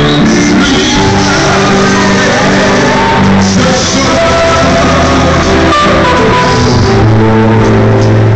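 Live band with several guitars and male voices singing into microphones, loud and amplified.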